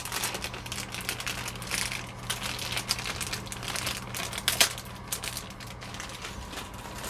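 Plastic packaging crinkling and rustling as small toy parts are handled, with scattered small clicks and one sharper click about four and a half seconds in.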